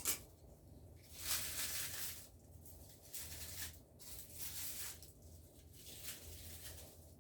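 Dry rustling, with a sharp click at the start and then four separate bursts of rustling over several seconds, as of something being handled.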